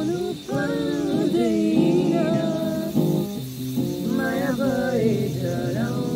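Acoustic guitar strummed while men sing a song along with it, the singing pausing briefly between phrases.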